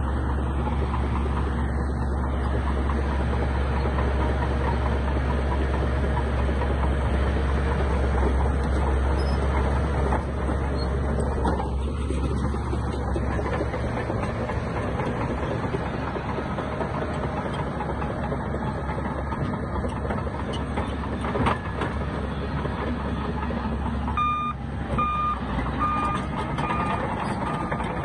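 Heavy diesel earthmoving machinery running at work, with a strong low engine hum through the first ten seconds that then gives way to a broader rumble. A few seconds before the end, a reversing alarm starts beeping at an even pace, a little over one beep a second.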